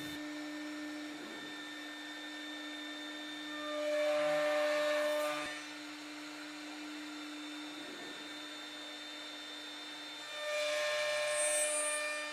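CNC router spindle running with a steady hum, its bit cutting into wood twice, each cut lasting about two seconds, while milling dovetail tails from the side.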